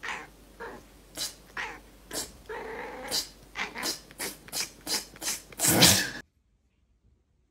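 A cat making a quick series of short, harsh sounds, about two a second, with one longer pitched sound about halfway through. The loudest comes near the end, then the sound cuts off suddenly.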